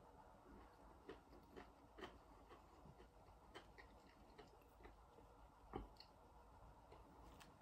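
Faint chewing of a crispy breaded chicken burger: soft, irregular crunches and mouth clicks, with one louder crunch about six seconds in.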